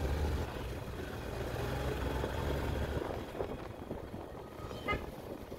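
Motorcycle engine and road noise while riding, a steady low hum that fades after about three seconds, with one short horn beep near the end.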